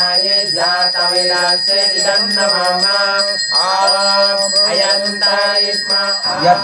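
A hand bell rung continuously as a steady high ringing, under voices chanting a mantra in short rising and falling phrases.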